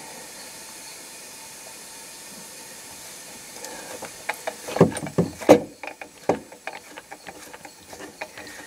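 Compressed air hissing steadily through the leakdown tester into the engine cylinder, which holds about 86 of 90 psi with a little leakage past the rings. From about four seconds in comes a run of irregular sharp clicks and knocks, the loudest about five seconds in, while the gauges drop as the pressure comes off.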